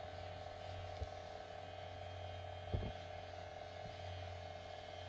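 Vibration motor of a Kitfort KT-3196 silicone facial cleansing brush humming steadily while it is worked over the skin, with two faint knocks, about a second in and near three seconds.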